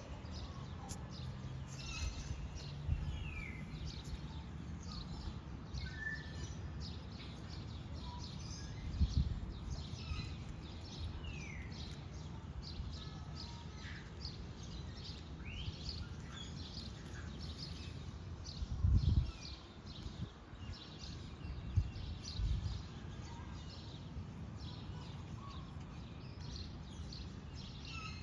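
Outdoor ambience of small birds chirping again and again, with a few short downward-sliding calls, over a steady low background. Brief low rumbles come about nine and nineteen seconds in.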